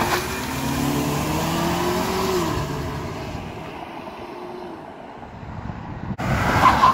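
Ford Mustang convertible accelerating away, its engine note rising in pitch and then fading as the car pulls into the distance. Near the end, a loud rush of wind on the microphone.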